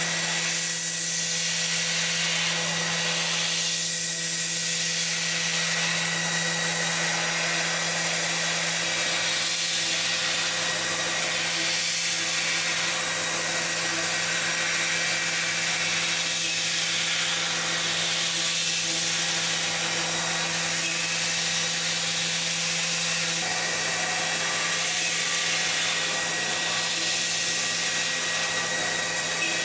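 Doosan PUMA TT1800 CNC turning centre running: a steady motor hum with a few fixed tones under a hiss that swells and eases every few seconds.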